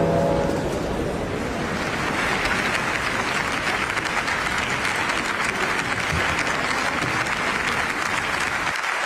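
A large audience applauding steadily, the clapping swelling over the first two seconds.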